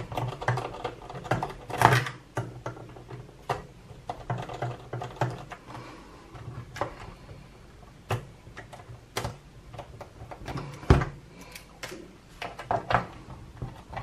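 Scattered small clicks, taps and scrapes of a screwdriver working the screws of a plastic radio-control transmitter's back case, and of the case being handled, with a sharper knock late on.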